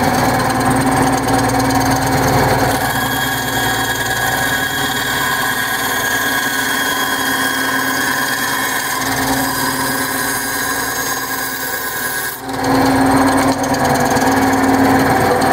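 Small benchtop bandsaw running steadily while its blade cuts through a block of balsa wood. About twelve seconds in, the sound dips briefly as the cut ends, and the saw runs on without load.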